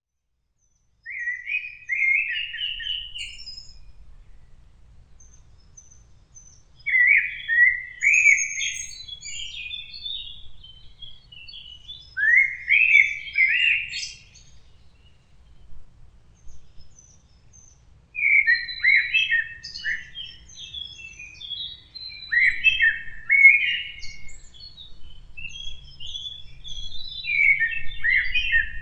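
A songbird singing a series of short phrases of quick, falling notes, a phrase every few seconds.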